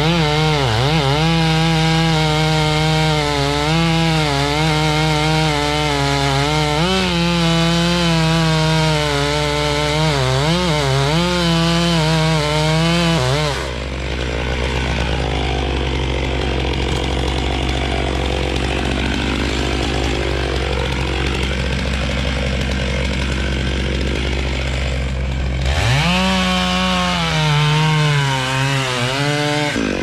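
Two-stroke chainsaw running at full throttle and cutting wood, its engine note sagging and recovering again and again as the chain loads in the cut. For about twelve seconds in the middle the high note drops away to a duller, lower sound, then the saw revs up again near the end.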